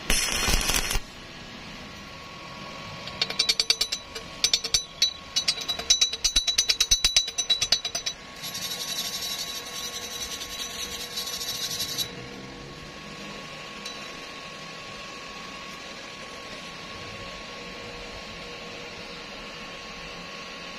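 A short burst of stick-welding arc crackle on a steel pipe-to-plate joint, then a run of rapid sharp taps on the steel, then a wire brush scrubbing the joint for a few seconds. After that only a steady low hum remains.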